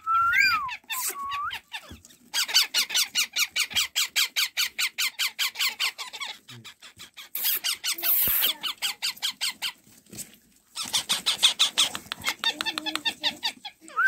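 Month-old parakeet chicks calling. A few gliding whistled calls come first, then long runs of rapid repeated squeaky calls at about seven a second, with a short pause near the end.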